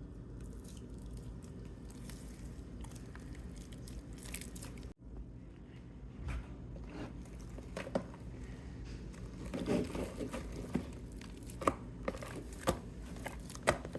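Crinkling, rustling and clicking handling noises over a low steady hum, growing busier in the second half.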